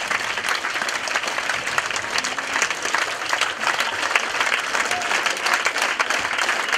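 Audience applauding: a hall full of people clapping steadily.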